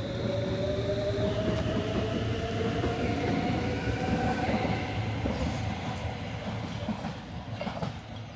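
Stockholm metro train pulling out of the station and speeding up, with its motor whine rising in pitch over the rumble of wheels on rail. The sound fades over the last few seconds as the train moves away.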